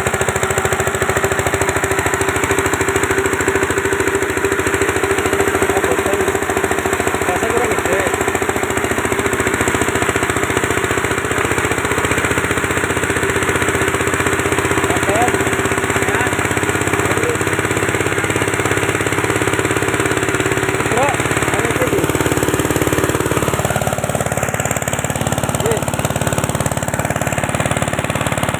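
Single-cylinder 8.5 hp diesel engine running steadily, driving a multi-purpose chopper-grinder while material is fed into its hopper and ground. A steady hum rides over the engine's rapid firing, and the sound changes about three-quarters of the way in.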